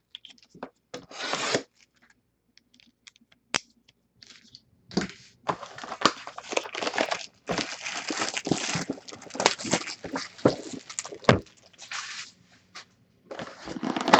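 Packaging of a box of basketball trading cards being torn open: plastic wrap and card packs ripping and crinkling, with scattered sharp clicks and a longer stretch of continuous tearing and crinkling from about five seconds in.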